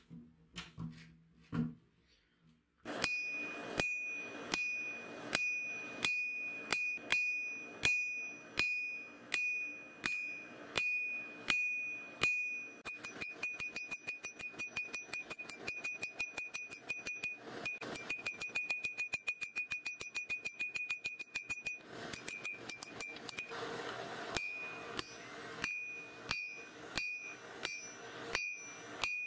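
Hand hammer striking red-hot coil-spring steel on an anvil, each blow ringing with a high anvil tone. Steady blows come about one and a half a second from about three seconds in, then a long run of quick, lighter taps, then steady blows again near the end.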